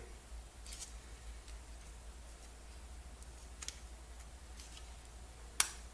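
Faint scattered clicks of a 62256 RAM chip's legs being pressed into a socket on a ZX81 circuit board, with one sharper click near the end.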